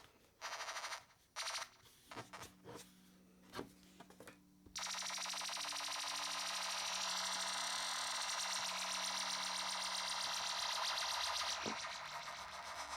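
Buzzy electronic synth sound, plausibly the Korg Monotron Delay: a few short noisy bursts, then from about five seconds in a steady buzz over a low drone, with higher tones that step between pitches, easing off near the end.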